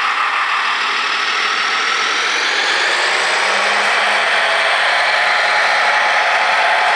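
Radio-controlled Tamiya Mercedes-Benz SK model truck driving, its Servonaut sound module giving a steady diesel-engine running sound, with a faint whine rising in pitch through the middle.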